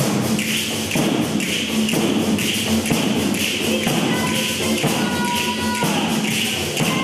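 Two tammorre, large Campanian frame drums with metal jingles, beaten in a fast, steady tammurriata rhythm, the jingles clashing about twice a second. A woman sings a few held notes over the drums in the second half.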